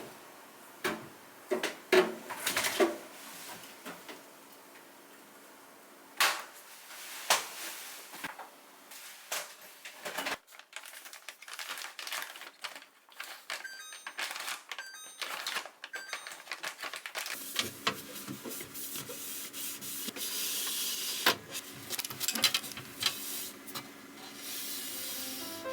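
Clicks, taps and knocks of plastic containers and food items being handled and set down while a refrigerator is organised. About two-thirds of the way through, a steadier rushing noise comes in under the clicks.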